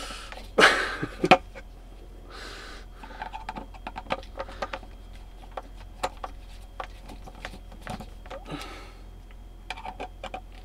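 Screwdriver turning screws out of a 12V diaphragm water pump's plastic housing: a run of small, irregular ticks and clicks. A louder breathy rush of noise comes about a second in.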